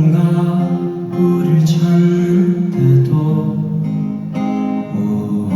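Live rock band playing, led by guitars holding and changing chords between sung lines.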